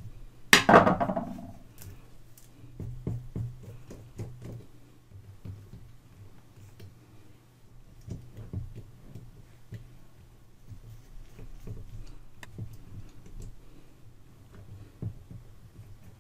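Small clicks, taps and scrapes of a screwdriver working the terminal screws and wire lugs on an old phonograph motor's terminal block, with one sharp knock about half a second in, the loudest sound.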